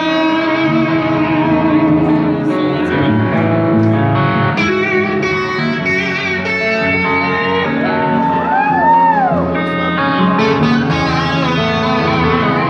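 Live rock band playing an instrumental passage led by electric guitars, with no vocals. About two thirds of the way through, a guitar note bends up and back down.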